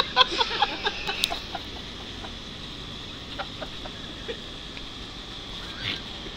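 A man laughing in short broken bursts that die away within the first second and a half, then only a steady faint background hiss.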